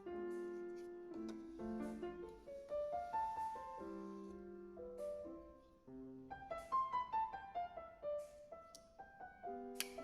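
Solo piano music in a moderate tempo: a classical-style sonata movement, Allegro moderato, played as a run of quick single notes and chords.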